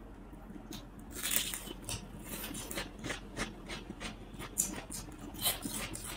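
Fried prawn crackers being snapped apart by hand and crunched while chewing, a run of irregular sharp crackles.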